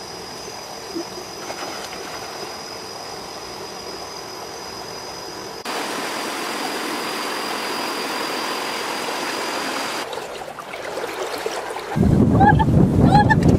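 Shallow stream running over rocks, with a thin steady high tone in the first half; about halfway through the water sound jumps louder. Near the end a loud low rumble takes over, with a few short chirps over it.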